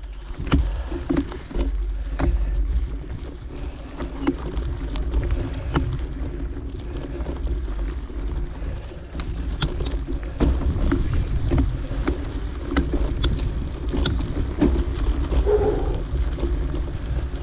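Mountain bike riding over a rough dirt and rock trail: a steady low rumble with many sharp clicks and rattles as the bike rolls over stones.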